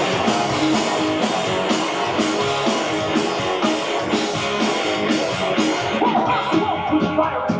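Live rock band playing: electric guitars, bass guitar and drum kit with steady cymbal strokes. About six seconds in the drumming drops back and the guitars carry on.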